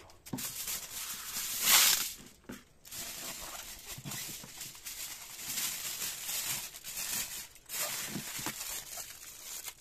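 Aluminium foil crinkling as hands tear it and fold and press it around a sweet potato, loudest in a sharp rush just under two seconds in, then going on in shorter bouts.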